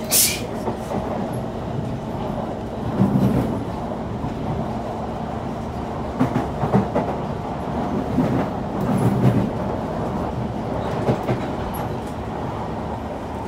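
Kawasaki C151 metro train car running at speed, heard from inside the car: a steady rumble of wheels on rail. There is a sharp click right at the start, and heavier thumps and rattles around three, seven and nine seconds in.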